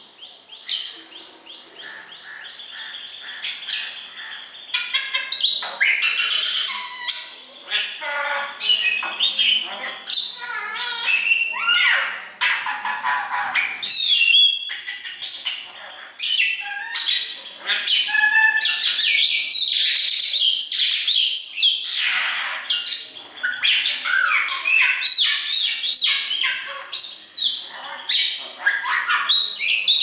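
Caged pet birds, a common myna and a cockatiel, calling almost nonstop: a quick jumble of harsh squawks, chirps and whistled notes that grows louder about five seconds in.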